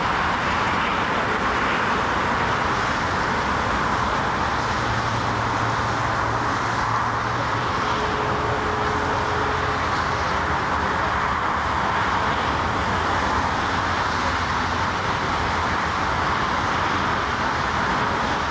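Steady rushing roar of a four-engine Airbus A340's jet engines as it lands, mixed with road-traffic noise. The level stays even throughout, with no distinct touchdown or reverse-thrust surge.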